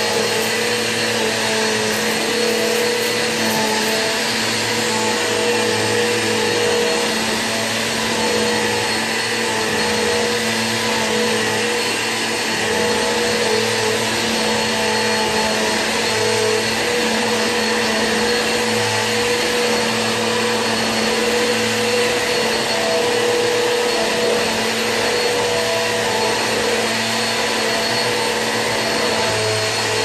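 Bissell PowerForce Helix 1700 bagless upright vacuum with its 8-amp motor running steadily, giving an even whine over the rush of airflow as it is pushed back and forth across the floor.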